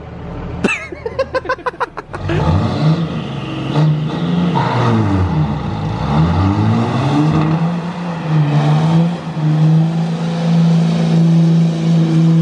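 Pickup truck doing a burnout: the engine revs up and down several times, then holds at high revs while the tires spin. A quick run of sharp clicks comes about a second in, before the engine rises.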